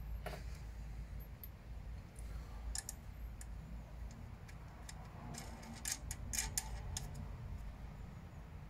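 Scattered light metal clicks and taps of a metal mounting bracket being handled and wing nuts being fitted by hand, with a cluster of clicks about six seconds in, over a steady low hum.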